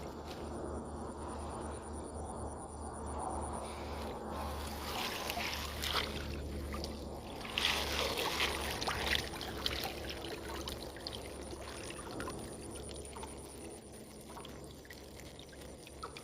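Water splashing and sloshing in irregular bursts, busiest in the middle, over a steady low rumble.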